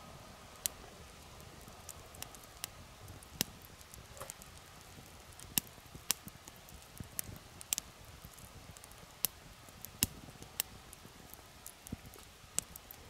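Wood fire crackling, with irregular sharp pops and snaps, about one or two a second, over a soft low rush of burning.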